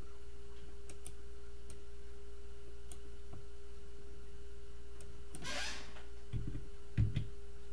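Scattered faint computer mouse clicks over a steady electrical hum, with a short rush of noise about two-thirds of the way in and two dull low thumps near the end.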